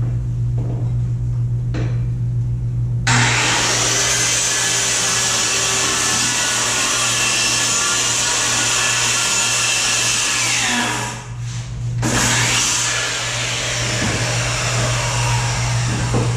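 Circular saw cutting treated plywood: the saw starts suddenly about three seconds in, runs through the cut and winds down with a falling pitch, then starts again about a second later for a second run.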